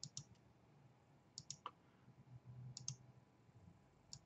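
Computer mouse clicking as points are picked on screen: about four clicks, each a quick press-and-release pair, roughly one every second and a half, over faint room noise.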